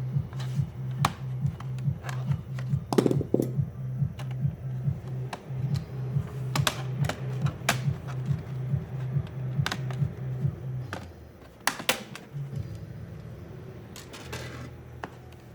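Scattered sharp clicks and taps of a laptop being taken apart: screwdriver and plastic case parts being handled, over background music with a steady low beat that drops back about eleven seconds in.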